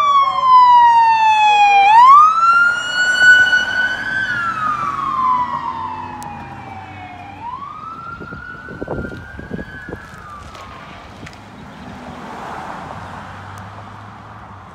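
Police car siren on wail, its tone rising and falling in slow sweeps of two to three seconds. It is loud at first, fades as the car drives away and dies out about ten seconds in, leaving quiet street noise.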